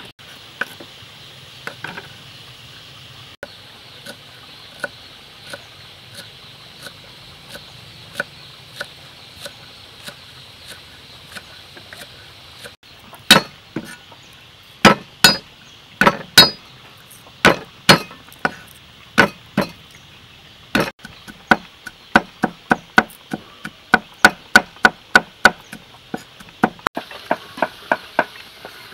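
Knife chopping garlic cloves on a thick wooden chopping block. It starts with faint, evenly spaced taps, becomes loud single strikes about halfway, then fast steady chopping at about three strokes a second. Near the end it changes to a faint sizzle of food frying in a wok.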